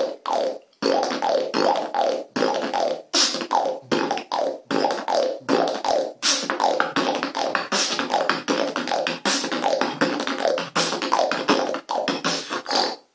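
Beatbox lip roll: the lips vibrating at one side of the mouth, repeated as a quick run of short bursts, about two a second, each dropping slightly in pitch.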